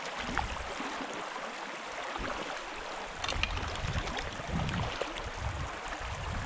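Flowing stream water, a steady rush, with a few low rumbling swells in the second half.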